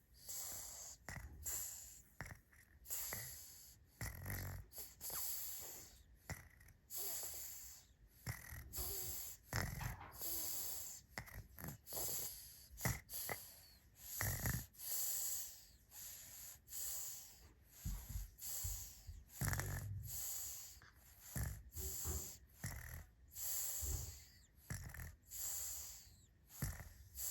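Baby snoring in sleep: quick, wheezy snoring breaths roughly once a second, with the odd snort.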